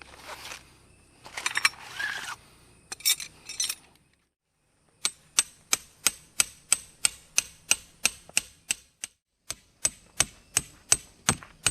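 Hammer driving a metal tent peg: a steady run of sharp strikes, about three a second, with a short pause partway through. Before it come a few seconds of irregular rustling and clattering as gear is handled.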